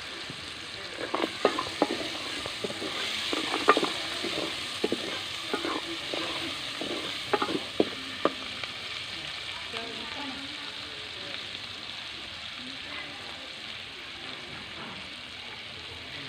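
Tomato, green chili and spice masala sizzling in hot ghee in a kadhai, with a utensil knocking and scraping against the pan as it is stirred for roughly the first eight seconds. After that, only the steady sizzling continues.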